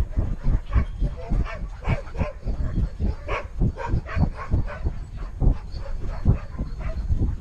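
A dog running, heard from a camera strapped to its harness: a fast, even run of knocks and jolts from its strides, about three to four a second.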